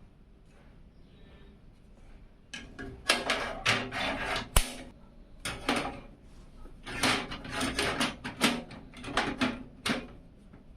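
Hard parts of a PC case being handled: a run of clattering knocks, rubs and clicks starting about two and a half seconds in, with one sharp click a little past four seconds.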